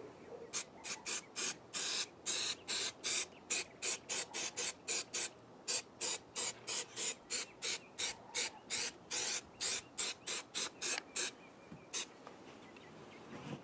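Aerosol can of spray adhesive giving dozens of short bursts of hiss, about three a second, with one last spray near the end: glue being sprayed onto the fiberglass camper shell to stick down an indoor/outdoor carpet lining.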